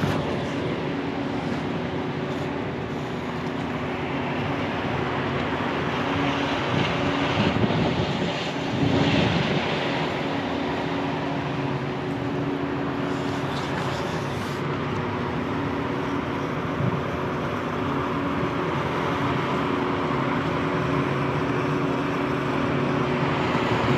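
Diesel engine of a concrete mixer truck running steadily at the end of a pour, with a louder rush of noise for a few seconds near the middle.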